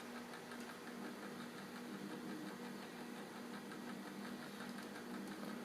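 Faint steady low hum with light, rapid, evenly spaced ticking.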